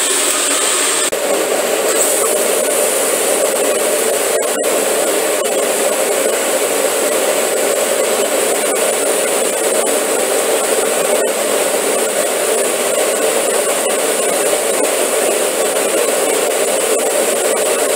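MIG welding arc on 16-gauge sheet steel: a steady hiss and crackle as a small gas tank is welded, briefly cutting out twice, about four and a half and eleven seconds in.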